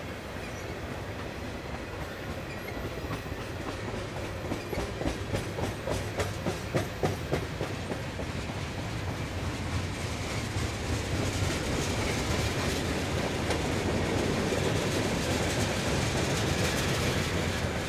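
Freight train rolling past, its tank cars and covered hopper cars clattering over the rail joints: a run of sharp wheel clicks a few seconds in, then a steadier, louder rumble through the second half.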